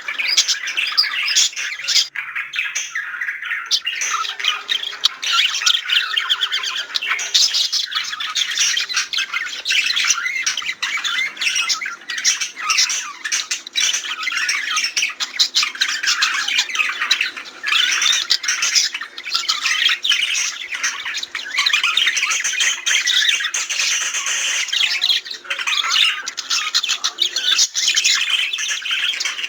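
A flock of budgerigars chirping and warbling with constant sharp squawks and clicks, the chatter of several birds overlapping without a break.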